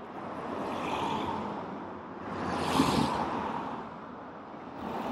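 Street traffic: cars passing close by one after another, their engine and tyre noise swelling and fading, loudest about three seconds in.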